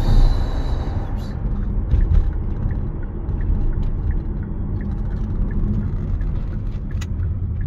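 Steady low rumble of road and engine noise inside the cabin of a Kia Sportage 1.6 T-GDI on the move, with a faint regular tick about twice a second through the middle.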